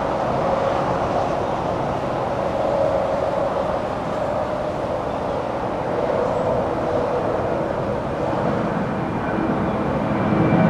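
A steady engine rumble with a hum that slowly shifts in pitch, and a lower hum joining near the end.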